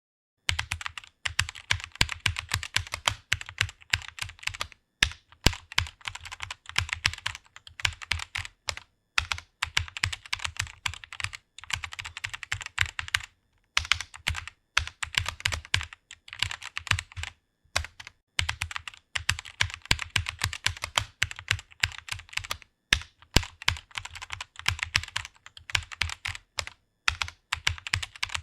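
Typing on a computer keyboard: a fast, continuous run of keystroke clicks, broken by a few brief pauses.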